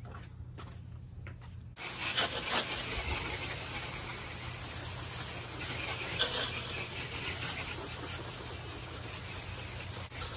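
Garden hose spray nozzle spraying water against the front door and siding: a steady hiss that starts suddenly about two seconds in and cuts off near the end.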